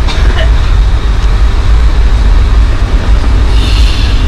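Steady low rumble inside the cabin of a Boeing 757-200 taxiing after landing, its Rolls-Royce RB211-535E4 engines at idle. A brief hiss comes in near the end.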